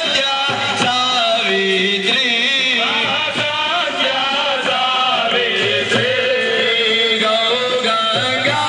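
Hindu devotional aarti song sung by a group with musical accompaniment, hands clapping along.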